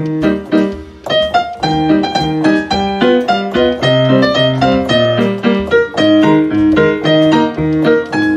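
Background piano music: a lively tune of quick, short struck notes.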